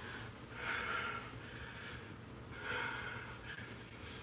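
A man breathing heavily through his nose: two short, noisy huffs about two seconds apart.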